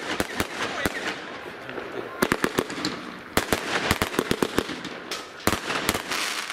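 Aerial fireworks bursting overhead: clusters of sharp bangs in quick succession, with a steady crackling hiss between them.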